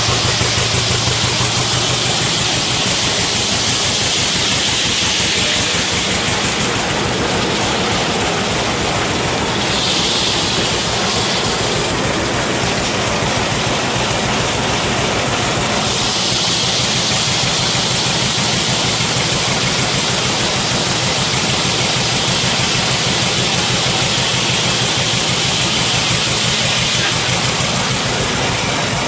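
1935 John Deere W-111 two-cylinder power unit running steadily, driving a sawmill, with an even low beat. A steady hiss sits above it and changes in tone between about 7 and 16 seconds in.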